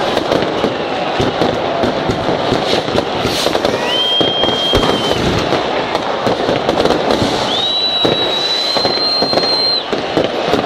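Many fireworks going off at once: a dense crackle of bangs and firecrackers. Two long whistles from whistling fireworks cut through it, one about four seconds in and a longer, slightly higher one from about seven and a half seconds in.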